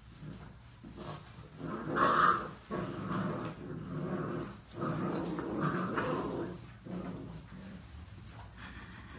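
American bully puppies growling and yelping as they play-fight. The calls start about two seconds in with a louder, higher cry, run almost continuously for about five seconds, and die down near the end.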